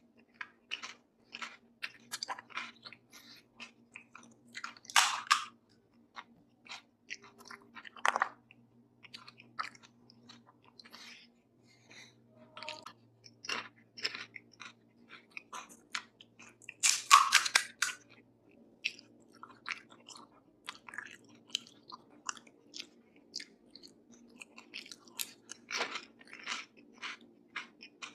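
Close-miked chewing and crunching of pani puri, the crisp hollow puri shells breaking between the teeth. It is a continuous run of small crunches, with a few louder bites, the loudest about two-thirds of the way through.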